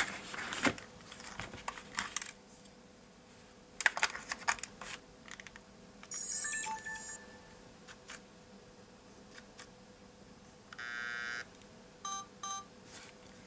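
Sony DSC-W830 compact camera being handled with sharp clicks, then giving electronic beeps: a short tone sequence about six seconds in, a steady beep of under a second near eleven seconds, and two short beeps right after. The camera is a faulty unit that ends up showing its 'turn the power on again' error.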